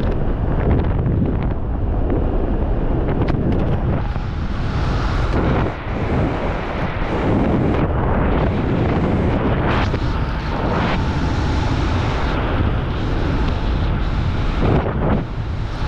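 Wind rushing over a helmet-mounted camera's microphone under an open parachute canopy, a steady dense roar of air with a couple of brief dips in loudness.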